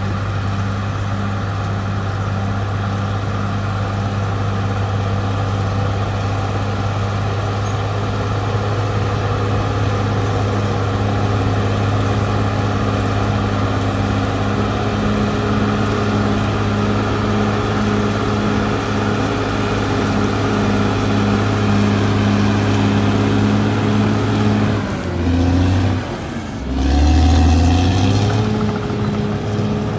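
Caterpillar D6R XL bulldozer's diesel engine running steadily under working load. Near the end the engine note drops briefly, then picks up again and is at its loudest.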